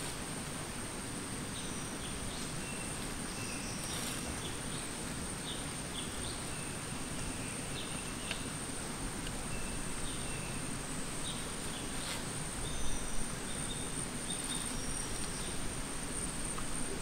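Rainforest ambience: a continuous high insect drone with short whistled bird notes scattered through it. A few sharp clicks and knocks stand out, the loudest a pair of knocks about thirteen seconds in.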